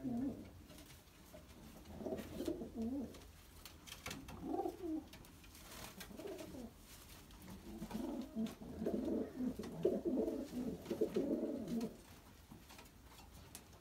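Domestic pigeons cooing in a loft, several birds at once, in repeated low phrases that grow busiest from about eight to twelve seconds in.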